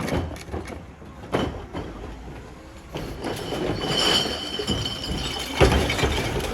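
Garbage truck packer compacting a load of recycling over a steady low hum, with metal clanks, a high metallic squeal about four seconds in and a loud bang near the end.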